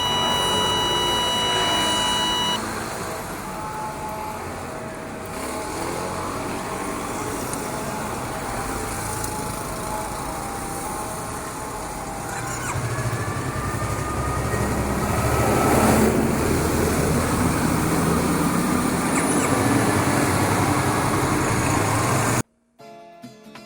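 Riding noise from a Yamaha YZF-R3's parallel-twin engine, with wind and traffic; the engine note rises just past halfway. A steady electronic beep sounds for the first couple of seconds, and near the end the sound cuts off sharply and background music begins.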